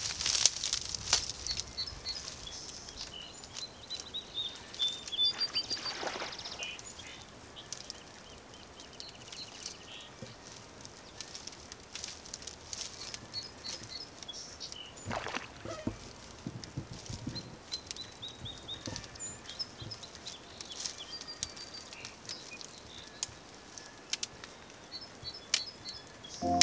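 Small birds singing in short chirping phrases that recur several times, over a quiet open-air background with occasional soft rustles of dry reeds.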